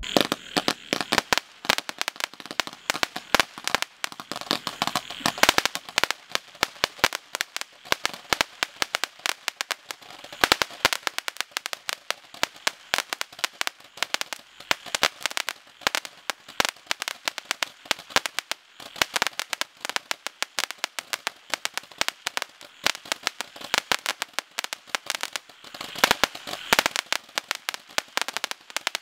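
Red Lantern RL6021 'Dodge This' multi-shot Roman candle firing a rapid, unbroken string of shots, many a second, its colour pearls going off with sharp report bangs and crackle.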